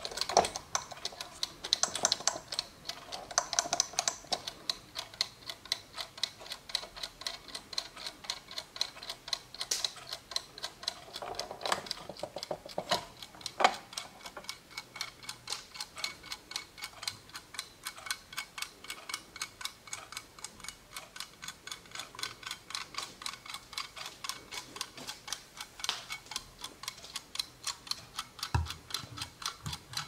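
Vintage German Weimar Uhren mechanical kitchen timer running, its clockwork giving a fast, even ticking, with a few louder knocks and rubbing sounds from the dial being turned and the timer being handled.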